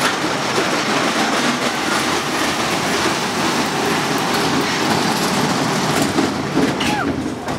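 Cars of a small steel kiddie roller coaster rattling and clattering along the track in a dense, steady din, easing slightly near the end as the train comes into the station.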